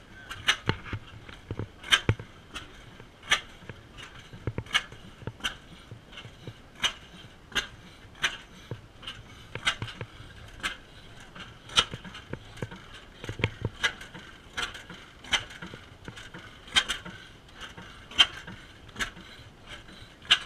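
Antique single-cylinder stationary gas engines with big flywheels running, giving sharp, irregularly spaced clicks and pops about once or twice a second.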